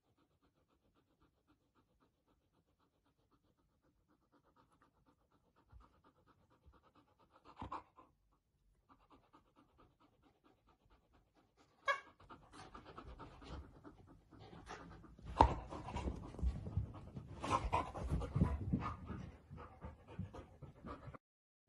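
Siberian huskies panting, faint at first, then much louder from about halfway through, with a sharp click just before the louder part.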